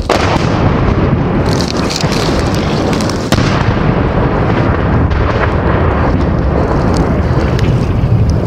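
Loud, continuous rumbling noise with a heavy low end, explosion-like, starting abruptly and jumping louder about three seconds in.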